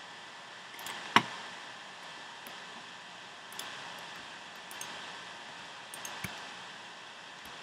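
Scattered sharp clicks from a computer mouse and keyboard being worked, the loudest about a second in and about five smaller ones after, over a steady hiss.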